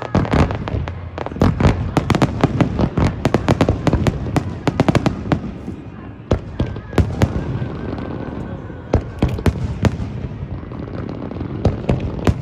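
Fireworks going off: a dense run of rapid bangs and crackles for the first five seconds or so, then sparser single bangs.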